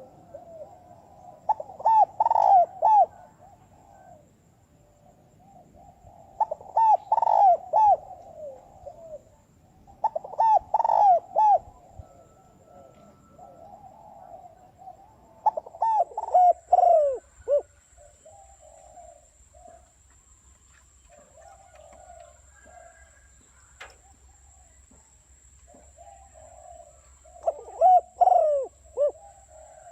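Spotted dove cooing: a decoy dove's calls used to lure wild doves, in repeated phrases. There are five loud phrases with softer cooing between them.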